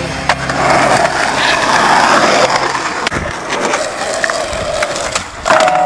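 Skateboard wheels rolling over concrete, with a few sharp clacks of the board.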